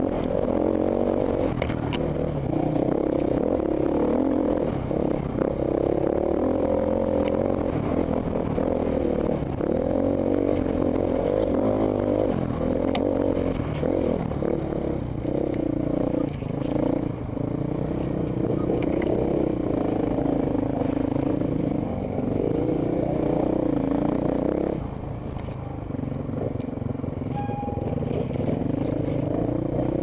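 Enduro dirt bike engine heard from a helmet camera, revving up and down as the bike is ridden over a rough dirt trail, easing off briefly late on. Scattered knocks and rattles come from the bike over the rough ground.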